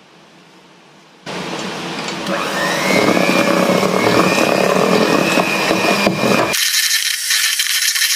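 Electric hand mixer switched on about a second in, running with a faint whine as its beaters whip cake batter in a stainless steel bowl. About six and a half seconds in, its sound changes abruptly to a thinner, hissier tone.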